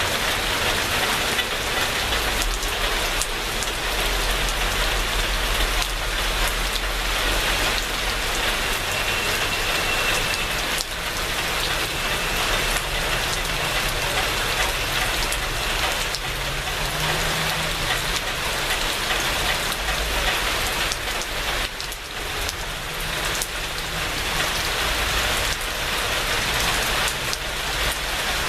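Steady rain falling on surfaces, with individual drops ticking through it and a faint low rumble underneath.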